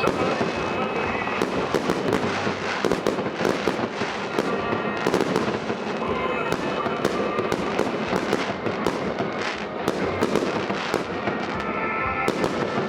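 A fireworks display, with dense, rapid bangs and crackling shots following one another without a break.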